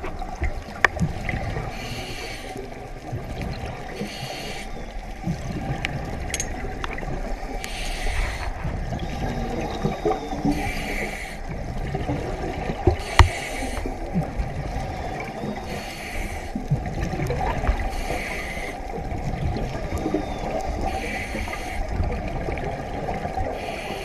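Scuba diver breathing through a regulator underwater: a burst of hissing, bubbling noise every two to three seconds over a steady low rumble.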